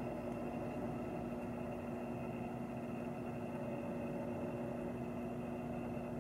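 IntraSpin benchtop centrifuge humming steadily with a few constant tones over a low hiss, while its rotor coasts down to a standstill at the end of a test run.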